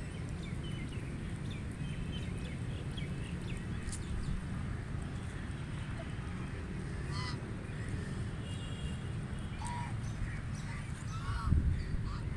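White domestic ducks quacking in short, scattered calls over a steady low rumble, with a few clearer quacks in the second half. A low thump near the end is the loudest sound.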